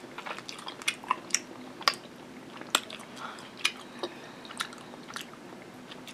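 Chewing and wet mouth smacks while eating baked macaroni and cheese: irregular short, sharp clicks a few times a second.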